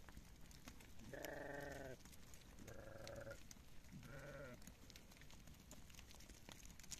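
Hamdani sheep bleating three times, wavering calls a second or so apart, the first the longest.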